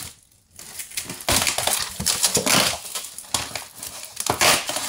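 A stretch-film-wrapped cardboard box being torn open by hand: plastic wrap crinkling and cardboard flaps rustling and scraping in irregular bursts, starting about half a second in.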